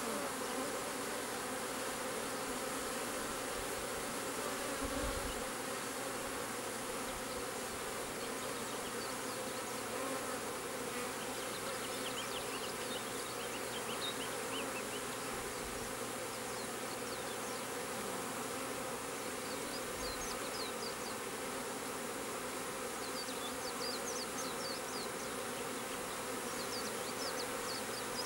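Honeybee swarm buzzing steadily, many bees in the air around a swarm trap as the swarm moves into it.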